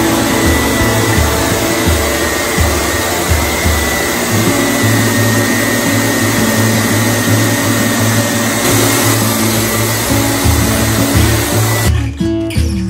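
Loud, steady rushing hiss of maple syrup processing equipment running, with a faint steady whine in it. It cuts off suddenly near the end, leaving only acoustic guitar music.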